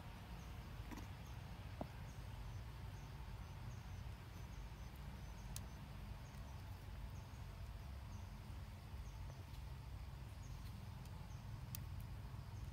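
Faint outdoor forest ambience: a steady low rumble under faint, short high chirps repeating about once or twice a second, with a few sharp clicks.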